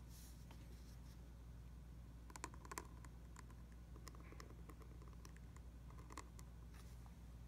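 Near silence with a few faint, scattered ticks and scratches of a pointed steel calligraphy nib on paper as it writes a letter's strokes.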